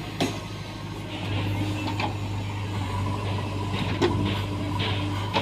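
Diesel engine of a JCB backhoe loader running steadily, with a few sharp knocks spaced about two seconds apart.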